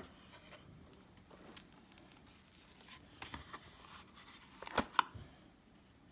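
Light handling noises from a Zippo lighter and its packaging: faint rustling and small taps, with two sharp clicks close together near the end.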